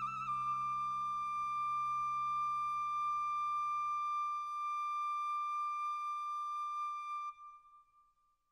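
Closing bars of an orchestral film score: one high held note on a flute-like wind instrument, with a brief trill at the very start, over a low sustained chord that fades out about halfway. The held note stops about seven seconds in and rings away into silence.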